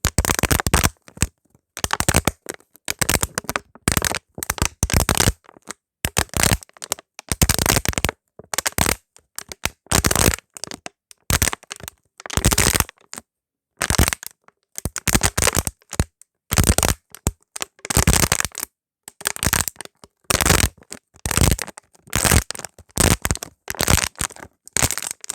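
A bottle being crushed: a long series of short crunches, one after another, with brief pauses between them.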